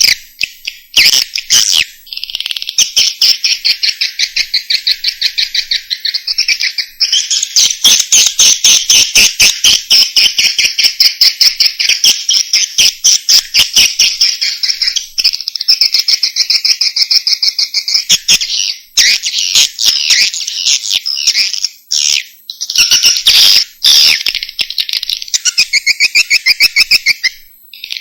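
Swiftlet calls on a recorded lure track used to attract swiftlets: long runs of rapid, high-pitched chattering trills, loud and dense, broken by short pauses every few seconds.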